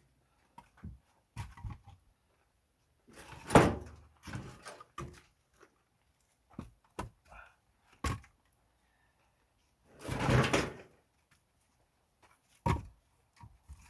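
Pine firewood logs being handled and stacked, knocking and thudding against each other at irregular intervals, with a few louder clunks about three and a half, eight, ten and twelve and a half seconds in.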